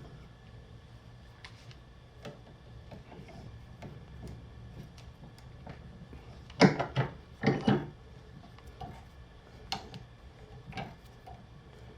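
Wooden pieces being handled on a workbench: scattered light clicks and knocks, with two short clusters of louder knocks about seven seconds in, over a low steady hum.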